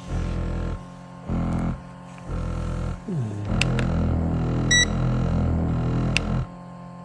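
Shiatsu foot massager's motor droning in short runs that start and stop, then sliding down in pitch and running steadily for about three seconds. A short electronic beep sounds from its controls near the middle, along with a few clicks.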